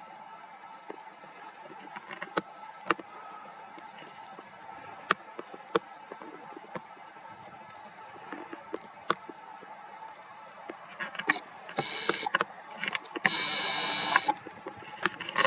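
A small electric motor whirring in several short bursts, each a second or so long, in the last few seconds. Underneath is a steady background with scattered sharp clicks.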